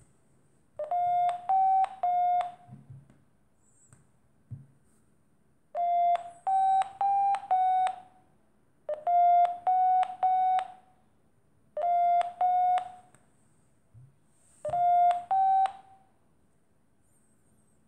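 A smartphone acoustic-variometer app beeping through the phone's speaker: bursts of two to four short, fairly high beeps every few seconds, the pitch stepping up slightly within each burst. Intermittent beeping like this is a variometer's climb tone, signalling that the phone's barometer senses a rise in height.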